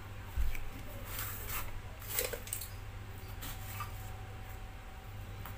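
Handling noises from a chainsaw and its parts being shifted about on cardboard: a low thump about half a second in, then scattered clicks and rubbing, over a steady low hum.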